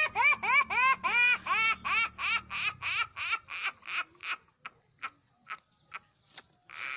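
High-pitched laughter: a fast run of rising-and-falling "ha" syllables, about four a second, that slows and fades to faint, spaced-out gasps near the end.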